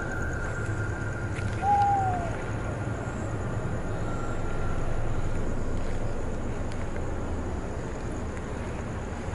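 A single short falling hoot-like call about one and a half seconds in. Under it run a steady high-pitched whine that fades out about halfway through and a constant low rumble.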